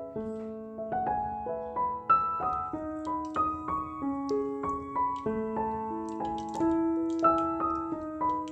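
Background piano music: a melody of separate held notes.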